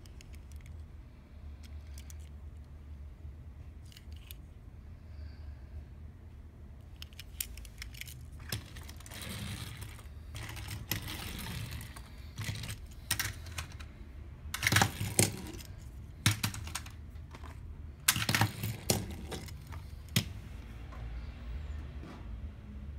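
A small die-cast toy bus and its cardboard box being handled on a play mat. It starts with sparse light clicks, then clicks and rattles come in clusters, with two louder clattering spells past the middle.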